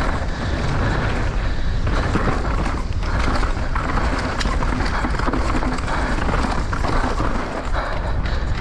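Downhill mountain bike descending fast: steady wind buffeting on the camera microphone over tyres running on loose, dusty dirt, with scattered clicks and rattles from the bike.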